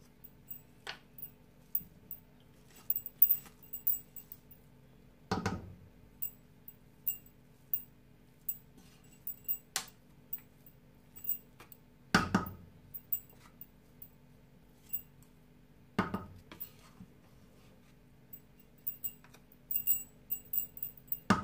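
Wooden spatula turning cooked rice in an aluminium pot: light scraping with many small clinks and ticks, and louder knocks against the pot about 5, 12, 16 and 21 seconds in. A steady low hum runs underneath.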